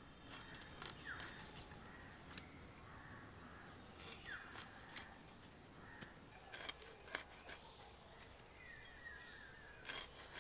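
Sharp clicks and crunches of a blade cutting a magur catfish into pieces, coming in short clusters several times. Birds chirp faintly in the background.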